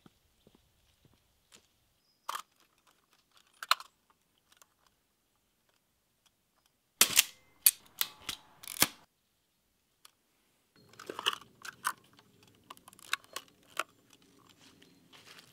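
Mechanical clicks and clacks of a Mamiya RB67 medium-format film camera being worked by hand: a couple of single clicks, then a cluster of four or five loud, sharp clacks a few seconds later, then lighter clicking of its controls over a faint steady background.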